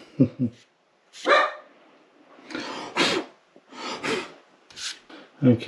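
A dog barking repeatedly in short separate barks, which the owner takes to be at the postman arriving.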